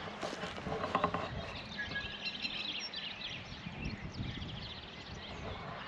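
Small birds chirping and twittering over a low, steady background noise, with the chirps thickest around the middle.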